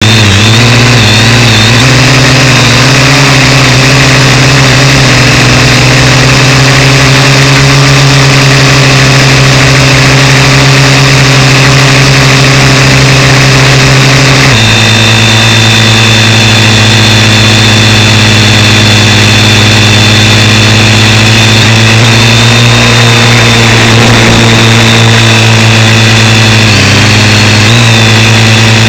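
Parrot AR.Drone quadcopter's four electric motors and propellers humming loudly, right at the camera, a steady buzz. The pitch wavers at takeoff, then drops a step about halfway through and holds steady while it hovers and climbs.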